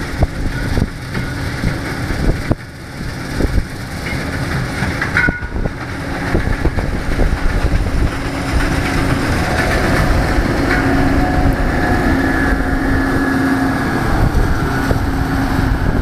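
Combine harvester cutting soybeans, a noisy steady mechanical drone with a humming tone that grows louder over the second half as the machine comes closer.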